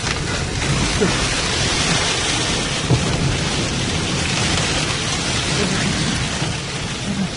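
Sandstorm wind blowing hard: a loud, steady rush of noise with a low rumble of wind buffeting the microphone.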